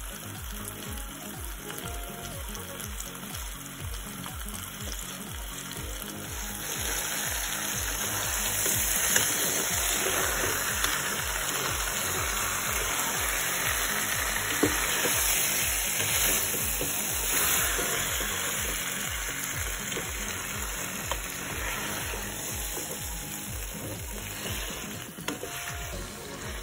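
Seasoned beef pieces sizzling as they brown in a pot, the sizzle growing louder about six seconds in, with a wooden spoon stirring and now and then knocking against the pot.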